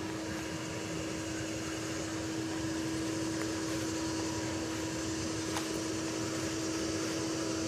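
A steady mechanical hum, like a fan or air-conditioning unit running, with one constant low tone under an even noise.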